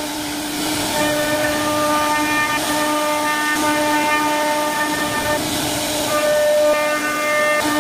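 CNC router spindle running at high speed with a steady high whine, its bit carving into a wooden door panel with a hiss of cutting.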